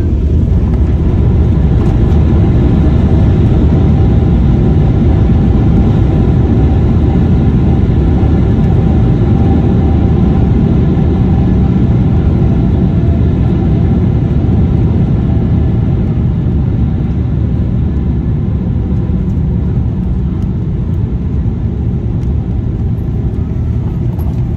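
Loud, steady cabin rumble of a Boeing 777-300 decelerating on the runway after touchdown, ground spoilers raised, with a faint steady engine whine over it; the rumble eases somewhat over the last several seconds as the airliner slows.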